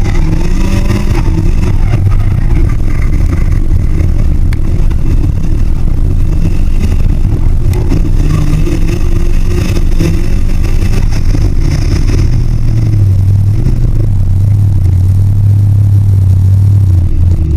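Nissan S15's SR20DET turbocharged four-cylinder engine revving up and down during a dirt drift, with a heavy steady drone in the last few seconds. The recording is loud and poor.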